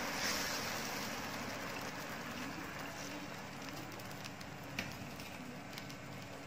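Semolina-and-yogurt chilla batter sizzling in hot oil in a frying pan, the sizzle slowly fading as it is spread. A couple of light clicks of the steel ladle on the pan come near the end.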